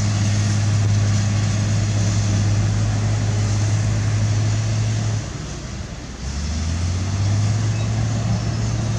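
Diesel engine of heavy construction machinery running with a steady low hum. About five seconds in, the note drops away for about a second, then comes back lower and climbs again.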